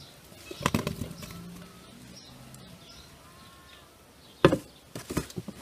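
Boiled potatoes tipped out of a pot into a glass bowl, landing as a quick cluster of knocks about half a second in. About four and a half seconds in comes one sharp, louder knock, followed by a few lighter clicks.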